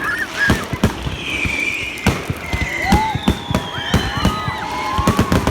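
Wood fire crackling, with sharp irregular pops several times a second.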